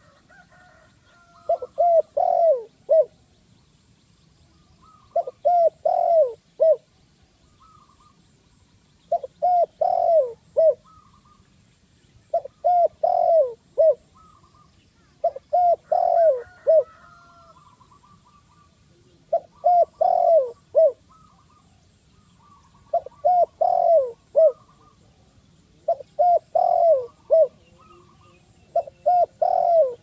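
Spotted dove cooing: a short phrase of four or five coos, repeated about every three and a half seconds.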